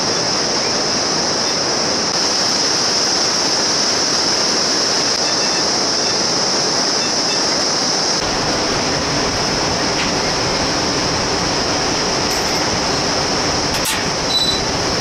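Steady rush of a whitewater river in the gorge below, with a steady high-pitched hiss over it.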